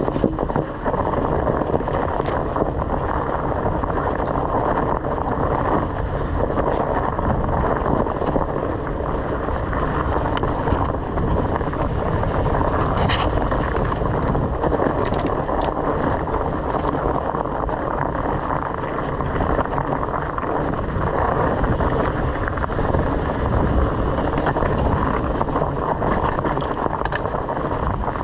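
Bicycle riding over a dirt trail: steady rumble of tyres on the ground and wind buffeting the microphone, with occasional clicks and knocks from the bike over rough spots.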